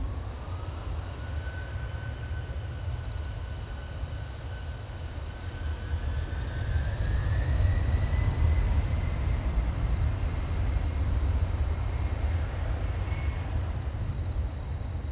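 Twin-engine jet airliner's engines running up on the runway: a low rumble under a whine that rises in pitch over the first eight seconds or so as the noise grows louder.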